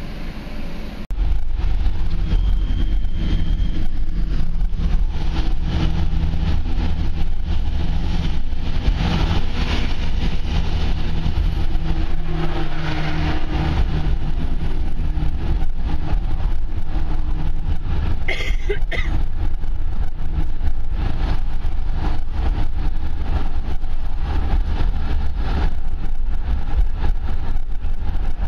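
Steady low rumble of a car's tyres and engine while driving across a steel truss bridge, heard from inside the cabin, starting after a quieter first second. A short higher-pitched sound stands out about two thirds of the way through.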